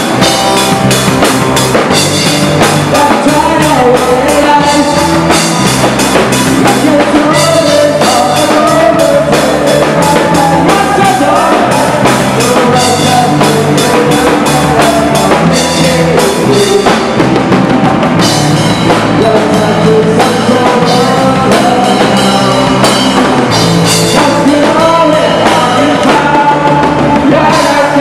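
Live rock band playing: drum kit, electric guitars and bass, with a man singing into the microphone.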